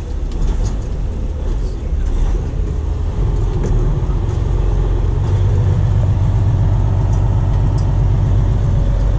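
Semi truck's diesel engine running at low speed, heard from inside the cab as the rig creeps onto a truck scale; the low rumble grows louder about five seconds in.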